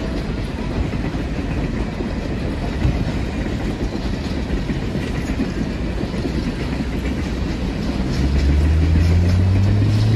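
Passenger cars of a train rolling past: a steady rumble of steel wheels on the rails. About eight seconds in, a louder low hum joins in and rises slightly in pitch.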